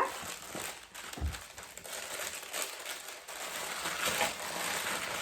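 Packaging crinkling and rustling as a skincare gift set is unwrapped and opened by hand, with a soft knock about a second in.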